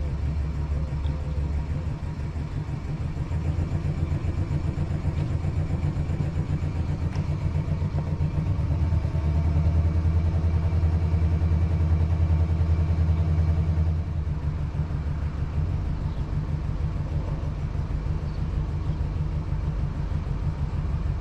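A boat engine running steadily, rising for a few seconds in the middle and then easing back.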